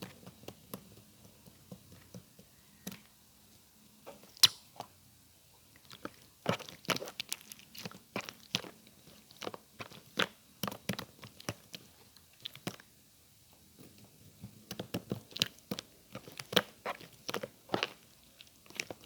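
Close, crisp crunching in irregular clusters of sharp cracks: a few scattered ones at first, then two dense runs a few seconds long.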